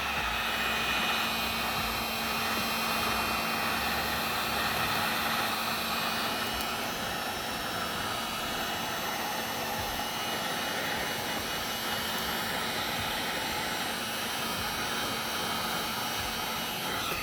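Heat gun blowing hot air steadily with a faint hum, warming the phone's back to soften the battery adhesive before prying the battery out; it shuts off at the end.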